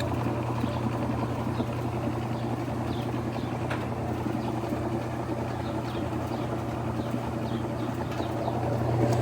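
Whirlpool Direct Drive top-load washing machine in its final spin, a steady motor hum and whir of the spinning tub that gets a little louder near the end.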